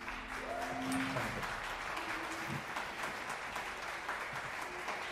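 The last held note of a keyboard and acoustic guitar song rings out and fades in the first second, then light audience applause.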